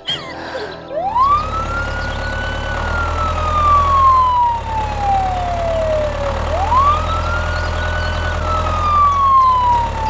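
Ambulance siren wailing in two slow cycles, each rising quickly and then falling gradually, over a low steady rumble.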